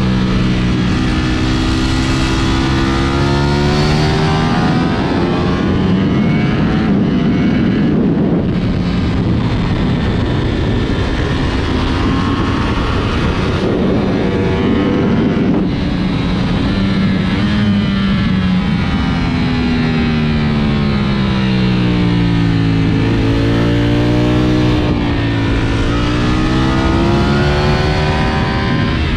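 Ducati Panigale V4 SP2's V4 engine under hard riding on a race track, its pitch climbing and falling again and again as the bike accelerates and slows, with a few short breaks in the sound.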